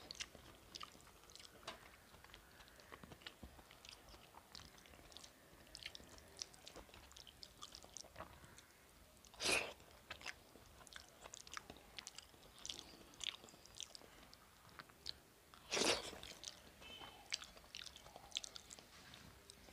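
Close-up chewing of a mouthful of rice and fish eaten by hand, with many small clicking mouth sounds. Two louder short noises stand out, about ten and sixteen seconds in.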